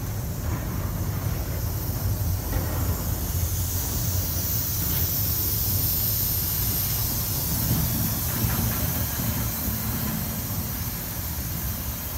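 Container-loaded intermodal well cars of a freight train rolling slowly past on curved track: a steady low rumble of wheels on rail with a high hiss, easing off slightly near the end as the last car moves away.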